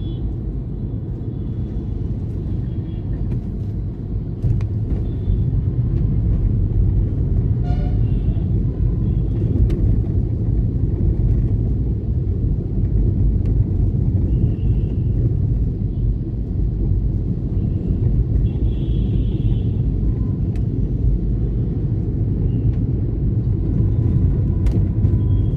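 Steady low rumble of a vehicle on the move along a city road, getting a little louder about four seconds in, with a few faint, brief high tones here and there.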